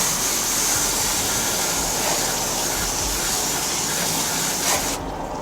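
Water spray from a hose nozzle hissing steadily as it rinses degreaser off, cutting off suddenly about five seconds in.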